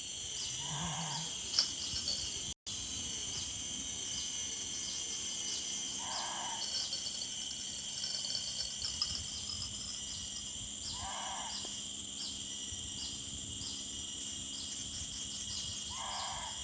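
Chorus of crickets and other insects trilling steadily at a high pitch, with a faster regular pulsing among them. Four times, about every five seconds, a short, soft, lower call sounds over the chorus from some animal.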